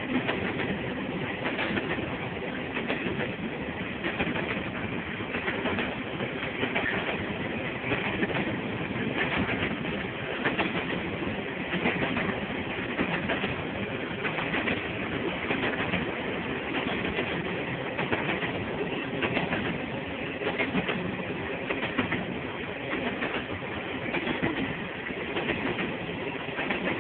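Freight train cars rolling past over jointed rail, the wheels clicking steadily at the rail joints over a continuous rumble.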